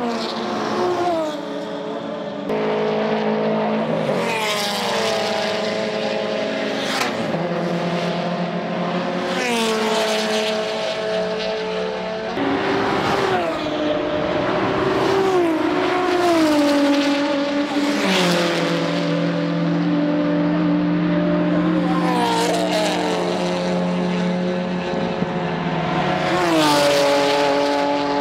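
GT300 and GT86 one-make race cars passing at speed one after another. Their engine and exhaust notes swell and fall in pitch as each car goes by, about half a dozen times, with the next car's engine always audible.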